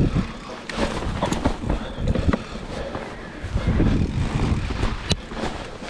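Mountain bike ridden over a rough trail: a steady rumble of tyres and wind, with frequent knocks and rattles as the bike goes over bumps and a sharp click about five seconds in.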